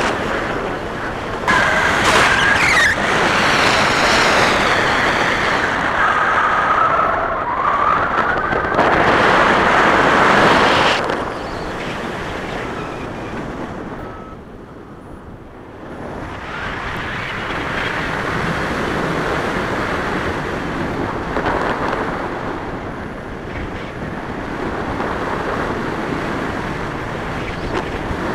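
Air rushing over the camera's microphone as a tandem paraglider flies: loud, steady wind noise that surges and eases, dropping off for a couple of seconds about halfway through.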